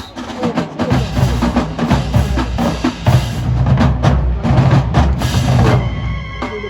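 Marching band drumline playing a fast, driving cadence on snare and bass drums, with sharp stick strikes, thinning out near the end.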